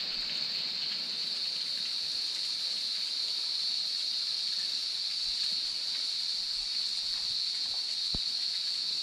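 Steady splashing hiss of a thin waterfall spilling down a rock face onto boulders, with a constant high-pitched insect drone over it.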